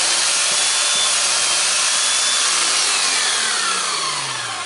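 Hilti TE56 SDS-Max hammer drill running unloaded with a chisel fitted, loud and steady, during a test run for a suspected armature fault. About three and a half seconds in the trigger is released and the motor runs down with a falling whine.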